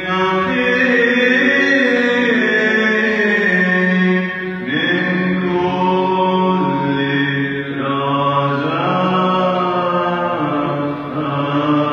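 Orthodox church choir chanting, with a melody moving over a steady low held drone that steps down once about halfway through.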